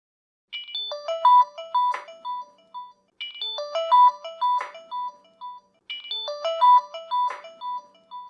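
Phone alarm tone: a short electronic melody played three times over, each phrase about 2.7 seconds long with a sharp percussive hit in its middle.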